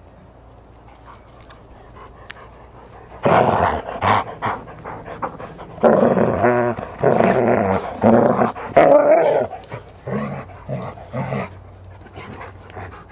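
Newfoundland dog growling and grumbling in loud, rough bursts. One short burst comes about three seconds in, a longer run follows from about six seconds, and it trails off into shorter grumbles near the end.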